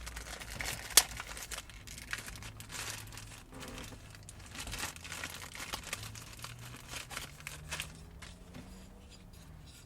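Packaging crinkling and tearing as a new replacement plastic latch is unwrapped by hand: irregular crackles and rustles, with one sharp click about a second in.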